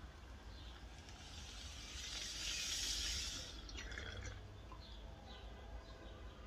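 Water in a glass bong bubbling as a long hit is drawn through it, building in loudness until it stops about three and a half seconds in. A few sharp clicks follow as the bowl piece is pulled out.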